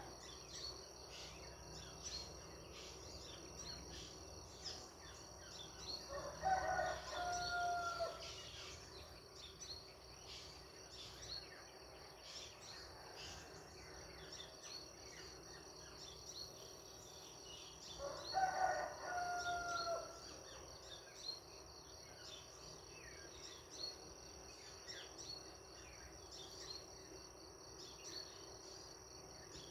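A rooster crowing twice, about twelve seconds apart, each crow about two seconds long. Underneath, a steady high insect trill and frequent short high chirps from small birds.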